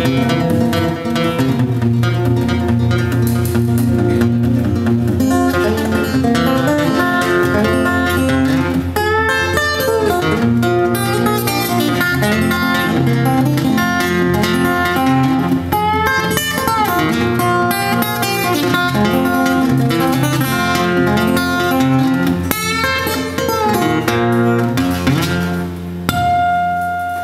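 Solo acoustic guitar, capoed and fingerpicked, playing a busy instrumental tune with many quick notes, then letting one note ring out near the end.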